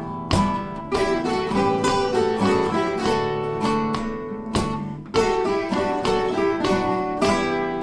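Several plucked string instruments played together: strummed minor chords with a melody line carried over them.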